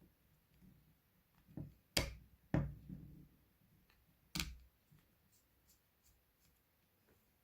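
Small screwdriver and phone-frame screws clicking and tapping against the phone and the work surface while the screws are taken out. There are a few sharp taps, the loudest about two seconds in and half a second later, another near four and a half seconds, and faint ticks after.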